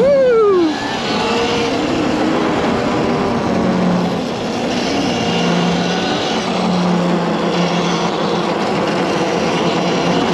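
Electric dirt bike on the move, a Honda CRF450R converted to a QS138 v3 electric motor: at the start the motor whine drops sharply in pitch as the bike slows. After that, a lower, wavering motor whine under a steady rushing noise.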